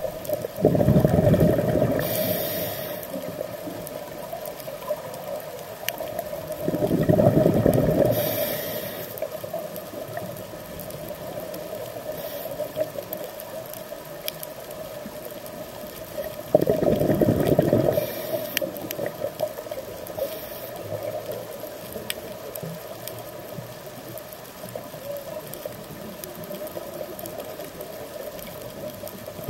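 Scuba diver breathing underwater: three long rushes of exhaled bubbles, about every eight to nine seconds, each with a short high hiss, over a steady low hum.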